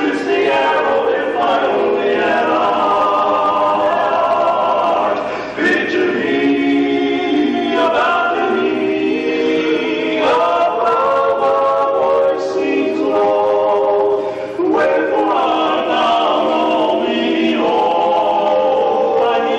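A barbershop quartet of four men singing a cappella in close four-part harmony, holding sustained chords in several phrases with short breaths between them.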